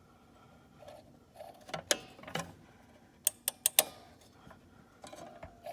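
Sharp metal clicks and rattles from a Manaras garage door opener's limit switch assembly as it is adjusted by hand, the keeper bracket pulled out and the limit nut turned. Two clicks about two seconds in, then a quick run of four clicks about a second later.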